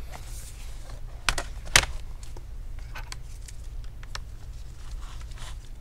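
Scattered light clicks and taps of a laptop's plastic case being handled on a table, the sharpest two about a second and a half in.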